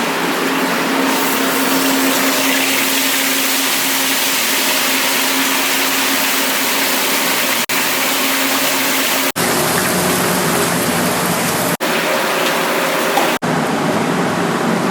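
Fish frying in hot oil: a loud, steady sizzle with a faint low hum beneath, cut off abruptly and resuming several times.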